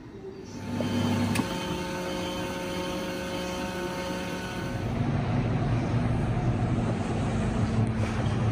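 Azkoyen bean-to-cup coffee machine running as it dispenses into a paper cup: a steady mechanical hum with a sharp click about a second and a half in. The hum stops near the middle and a low rumbling noise follows.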